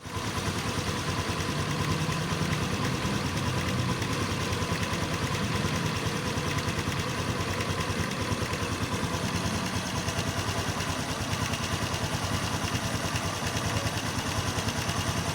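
Honda XRM 125 Fi motorcycle's single-cylinder engine idling steadily, with a knocking from the left side of the engine that the owner wonders may come from the tensioner.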